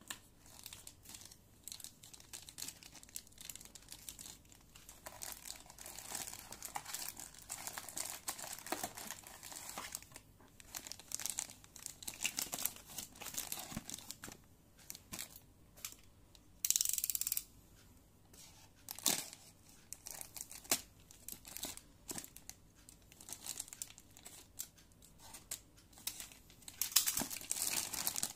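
Clear plastic packaging bags crinkling and rustling in irregular bursts as toy launcher parts in them are handled, with a louder rasping burst lasting under a second about two-thirds of the way through.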